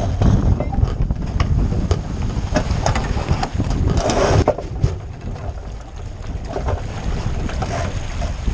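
Wind buffeting the microphone of a camera mounted on a 49er skiff, with water rushing past the hull. Scattered knocks and clatter come from the crew crossing the deck and working the rigging during a tack.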